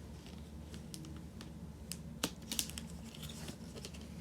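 Faint handling of a cardboard box, a few light clicks and rustles about two to three seconds in, over a low steady hum.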